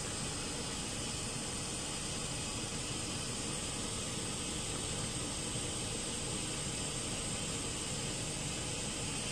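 GE Profile washing machine filling with water for its rinse cycle: a steady hiss of water running into the drum.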